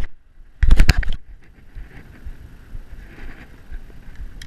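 A brief rush of wind buffeting the microphone, lasting about half a second and starting about half a second in, then a low steady outdoor background of breeze.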